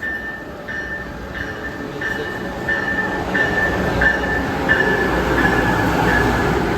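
Train coming through the station, its rumble growing louder a few seconds in, with a bell ringing steadily about one and a half strokes a second.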